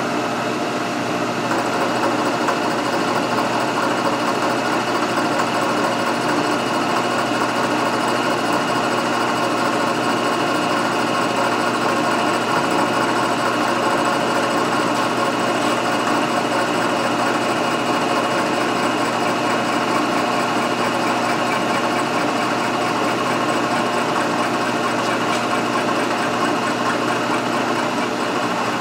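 Milling machine running steadily as its insert face mill cuts across hot-rolled steel, facing off the surface of the part.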